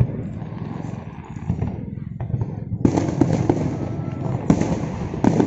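Fireworks display: shells bursting in a dense run of bangs and crackling, which eases about two seconds in, then a fresh volley of loud bursts.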